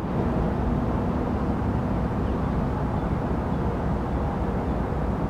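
Steady low rumble of a train running by, with a faint steady hum that fades out near the end.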